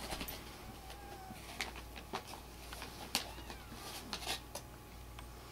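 A couple of faint, high, thin mews from Siamese kittens, with soft scattered taps and rustles.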